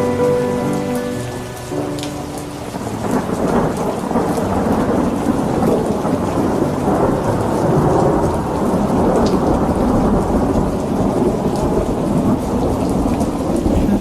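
Steady rain with a long, rolling thunder rumble that builds about three seconds in and carries on through. A few held musical notes die away in the first couple of seconds.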